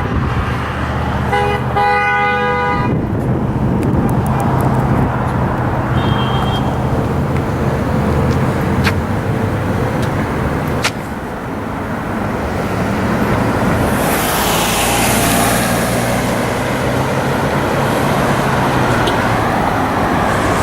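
Steady roar of heavy road traffic passing close by, with a car horn sounding for about a second and a half near the start, a driver honking in answer to the protest signs. A louder high hiss from a passing vehicle comes about fourteen seconds in.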